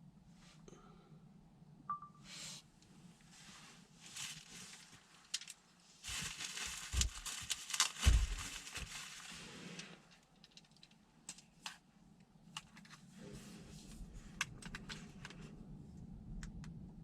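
Rustling or crinkling with scattered clicks over a low steady hum. The rustling is loudest for about four seconds in the middle, with a couple of heavier knocks within it.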